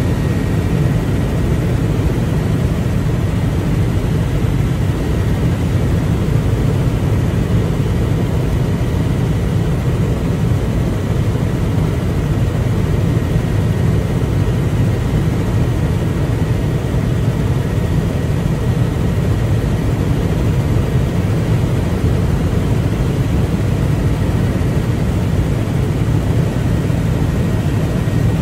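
Steady drone of an aircraft's engine in flight, loud and unchanging, with a faint high whine held over it.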